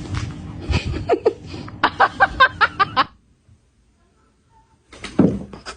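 A person laughing in a quick run of about six short bursts, then a gap of near silence lasting about two seconds.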